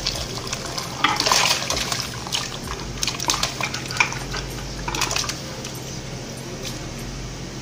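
Boiled goat feet and broth poured from a tipped pot into a metal stockpot: liquid splashing with irregular clattering knocks of pot and bony pieces, loudest about a second in and again around the fourth and fifth seconds.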